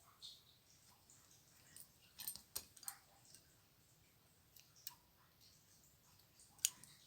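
Faint, scattered small clicks of hands working on a crochet piece while a polyester yarn end is fastened off: a cluster of clicks a couple of seconds in, another a little later and a sharper one near the end.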